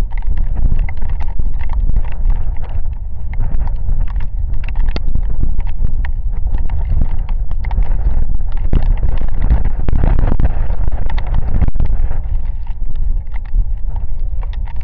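Heavy rain in a windstorm: gusts buffet the microphone as a deep, steady rumble while raindrops strike close by as a dense crackle of irregular ticks. It swells slightly about ten seconds in, with one sharp tick just before twelve seconds.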